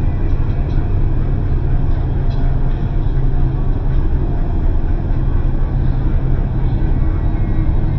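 Passenger train running, a steady low rumble.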